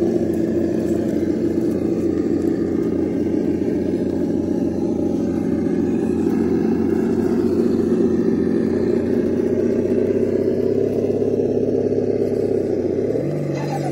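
Simulated engine rumble from the RC truck's ESS-Dual+ engine sound simulator, a steady low running sound with a pulsing beat, rising in pitch like a rev near the end.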